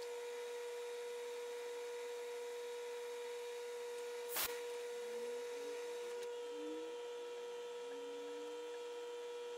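Metal lathe running, a steady whine, with one sharp click about four and a half seconds in.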